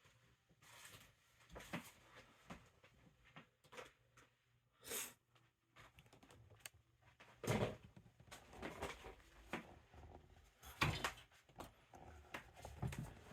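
Faint scattered knocks, bumps and rustles of handling as a camera is picked up and moved in close, with two louder thumps about seven and a half and eleven seconds in.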